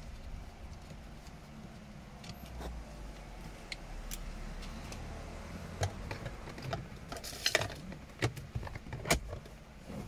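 Small metal tools being handled: a low rumble, then a run of sharp metallic clicks and clinks from about six seconds in, loudest twice near the end.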